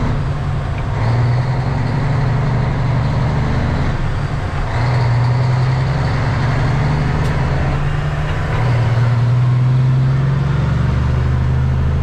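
A semi truck's diesel engine running while driving, heard from inside the cab, a steady low hum with road noise. Its level dips briefly about four seconds in, then picks up again.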